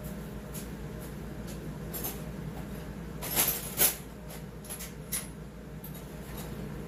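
Light metallic clicks and clinks of hand tools and saw parts being handled on a workbench, with two sharper knocks about three and a half seconds in, over a steady low hum.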